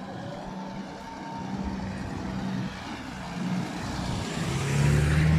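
An SUV driving past on the road close by, its engine hum and tyre noise growing louder as it approaches and peaking as it passes near the end.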